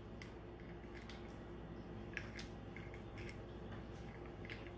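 Faint scattered clicks and scrapes of a pointed tool picking at the plastic housing of a CB microphone's element, over a low steady room hum.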